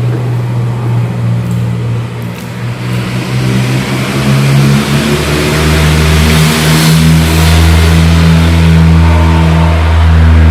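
A motor running loudly with a steady hum; about four to five seconds in its pitch drops and a hissing noise swells over it.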